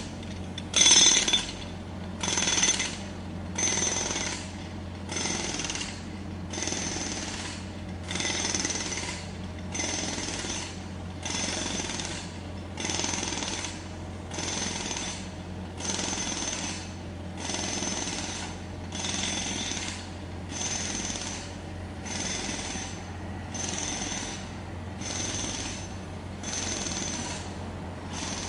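Jackhammer hammering in short bursts, about one every second and a half, each with a high metallic ring, over a steady low hum.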